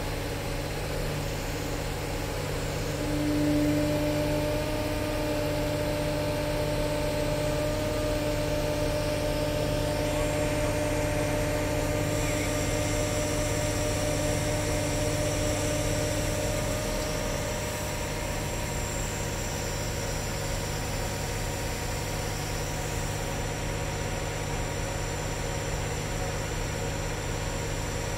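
Crane engine running steadily while it holds a sailboat hull in its slings, with a steady whine that sets in about three seconds in and fades out a little past halfway.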